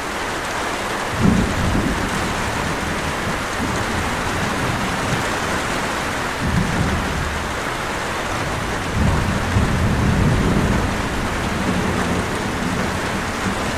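Steady rain with low rolls of thunder: one about a second in, another near the middle, and a longer rumble about two-thirds of the way through.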